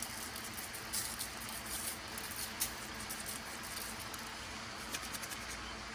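Faint light pattering and small scattered ticks over a steady hiss, from seasoning rub and hands working raw ground-beef burger patties.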